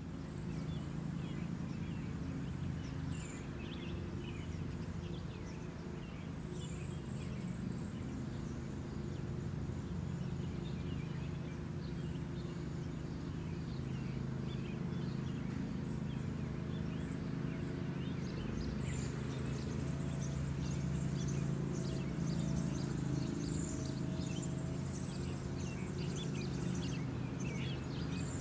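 Outdoor ambience: many small birds chirping over a steady low rumble.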